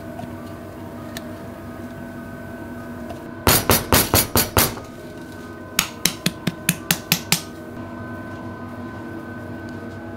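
Two quick runs of sharp, hard knocks, about six or seven a second, over a faint steady kitchen hum: thick shake being knocked out of a plastic blender jar and kitchenware tapped on a stainless steel worktop.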